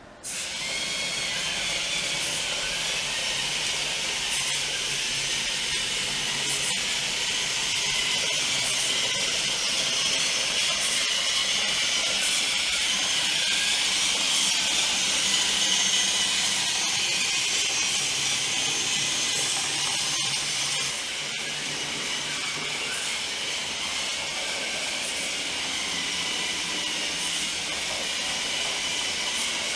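Tracked robot's two DC gear motors and treads running steadily as it drives across a hard floor, with a steady hiss and whine. The sound drops a little and changes about two-thirds of the way through.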